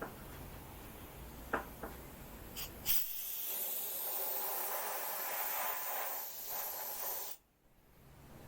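A few light knocks, then a steady hiss for about four seconds that cuts off suddenly.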